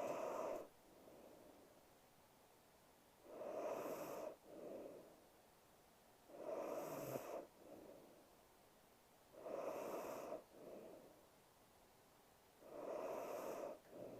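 A sleeping woman breathing heavily, slow and regular: five breaths about three seconds apart, each a louder rush of about a second followed by a shorter, softer one.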